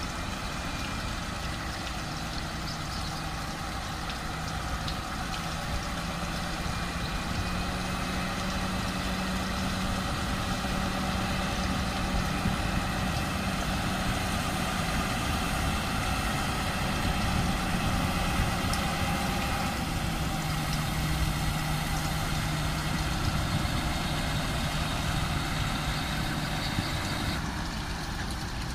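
SIDES 6x6 airport crash tender's diesel engine running as the truck drives while spraying water from its bumper nozzle, with a steady hiss of spray over the engine. The engine note shifts a couple of times and gets louder toward the middle as the truck passes, then drops near the end as it moves away.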